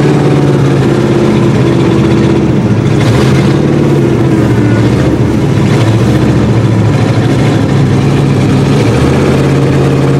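1955 Chrysler Hemi V8 running loudly, heard from inside the cabin. It holds a steady pitch, with a rougher patch a few seconds in.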